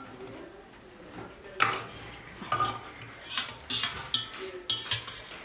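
Serving spoon scraping and clinking against metal pots, bowls and plates as rice and dal are dished out. About a second and a half in, it starts a run of sharp clinks and scrapes.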